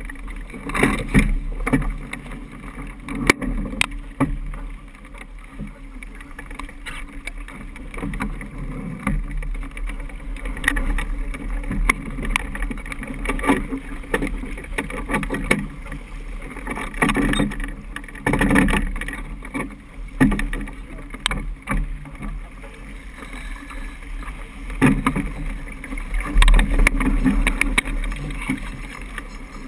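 Niagara 26 sailboat beating upwind: water rushing along the hull and a low buffeting rumble of wind on the microphone, with irregular knocks and rattles from the boat's gear.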